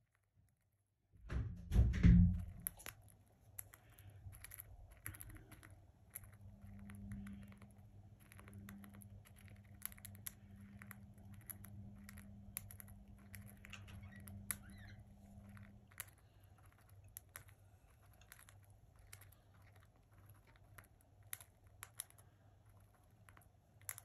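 Budgie cracking and husking seeds in a metal bowl: many small irregular clicks and crunches from its beak, over a low steady hum. A louder thump comes about a second in.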